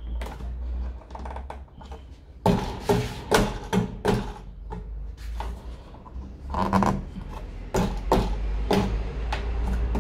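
Irregular knocks and rubbing as hands press and work at a car's rear licence plate, over a low steady rumble. Some of the knocks ring briefly.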